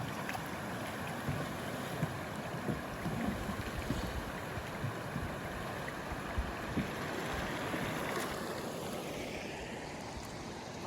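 River water flowing around a canoe, with wind noise on the microphone and a few light knocks.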